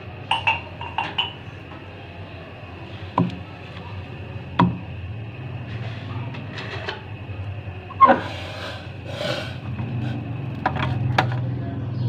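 Ceramic mugs set down on a table with clunks and clinks, and a steel saucepan picked up: about half a dozen separate knocks, the loudest about two-thirds of the way through. A steady low hum lies under them and grows louder near the end.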